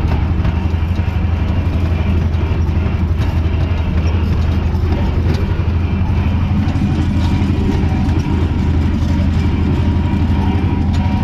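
Tractor's diesel engine running steadily while pulling a hay rake, heard from inside the cab as a strong, even low hum with light rattling.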